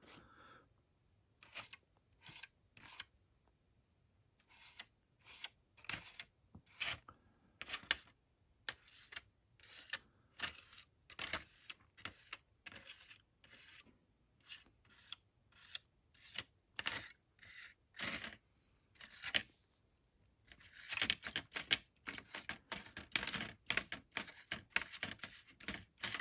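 Paintbrush stroking acrylic paint onto a model corrugated iron fence: short separate brushing strokes, about two a second, coming quicker and busier in the last few seconds.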